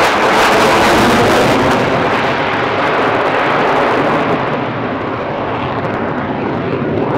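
F-22 Raptor's twin Pratt & Whitney F119 turbofan jet engines, a loud rushing jet noise as the fighter passes overhead. The high hiss fades after about two seconds, and the sound then slowly dies away as the jet moves off.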